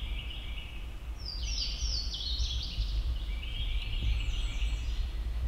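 Turkey calling: a run of short, high notes, about three a second, from about a second in until near the end, over a steady low wind rumble.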